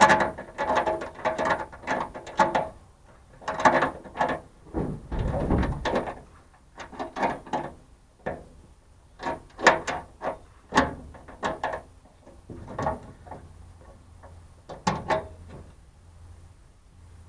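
Metal clicking and rattling as a new lock cylinder is fitted into a truck-bed toolbox lid, in irregular bursts, with a heavier knock about five seconds in.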